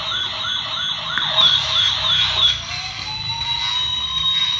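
Toy police car's siren: a fast warbling siren for about two and a half seconds, then a slower wail that rises and falls.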